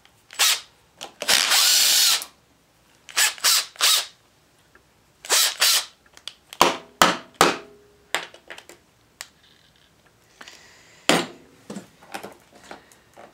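Cordless power driver with a socket spinning in several short runs over the first six seconds, zipping the two 10 mm nuts off the starter solenoid terminals. After that come scattered clicks and knocks of metal parts being handled.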